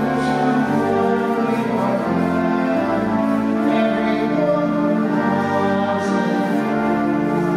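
Slow church music of long held chords, the notes changing together every couple of seconds.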